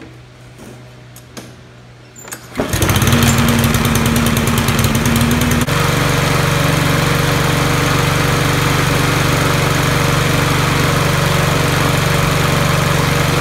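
Craftsman 159cc single-cylinder lawn mower engine starting about two and a half seconds in, catching at once and running steadily; its note shifts slightly about three seconds after it starts, then holds. This is the test run after the gas cap was drilled so the tank can vent.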